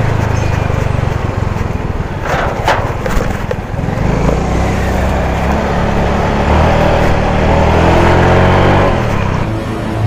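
Yamaha Mio i 125 scooter's single-cylinder engine running on the move, with road and wind noise; the engine note rises as the scooter speeds up in the second half.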